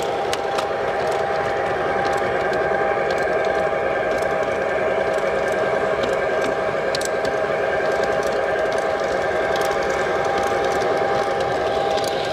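LGB G-scale model train's electric motor and gearing whirring steadily as it runs along the track, a steady whine under the running noise, with scattered light clicks.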